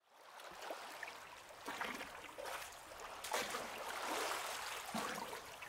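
Ocean waves washing onto a shore, a soft noisy wash of water that fades in at the start and swells and recedes several times.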